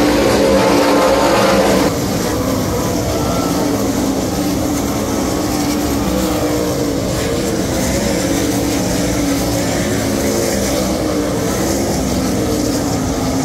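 A pack of World of Outlaws sprint cars' 410 cubic-inch V8 engines running at racing speed around a dirt oval. Several engine notes overlap and waver in pitch as the cars pass. The overall level steps down slightly about two seconds in.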